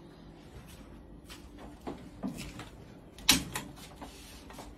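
A gas stove burner being lit with a long-nosed lighter: a few small knocks and clicks, then a sharp click about three seconds in, followed by a soft hiss.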